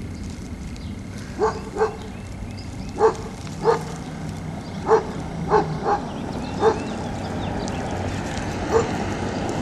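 A dog barking: about nine short barks spaced a second or so apart, several coming in quick pairs.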